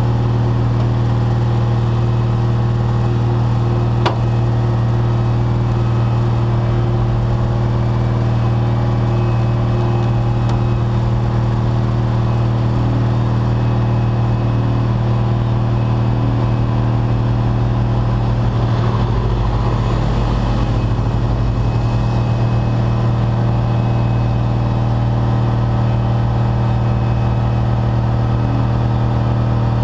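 Tow truck's diesel engine running steadily while its winch drags a semi tractor out of a ditch. A single sharp click about four seconds in.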